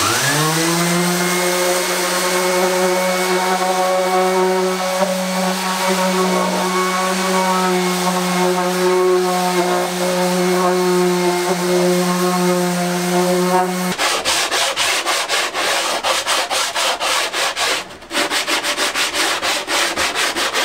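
Random orbital sander spinning up and running steadily on an OSB panel. About fourteen seconds in, the sound changes to hand sanding of the panel's edge with a sanding block in quick back-and-forth strokes, with a brief pause near the end.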